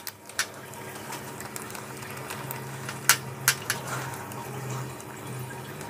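A few sharp metallic clicks from a bolt and the governor housing as the governor's second bolt is set in by hand on an A4LD transmission output shaft. One click comes near the start and three close together about three seconds in, over a steady low hum and hiss.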